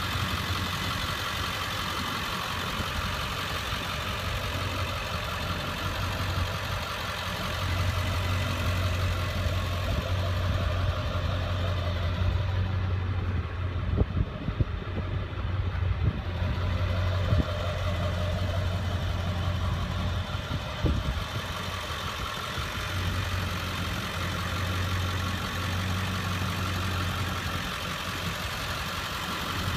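Ford 7.3-litre Power Stroke turbo-diesel V8 idling steadily, with a few sharp taps about halfway through.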